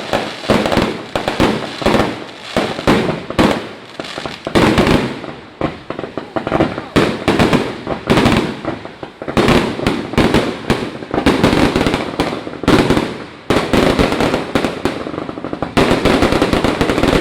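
Fireworks going off in a rapid, dense string of bangs and crackles, loud throughout with brief lulls.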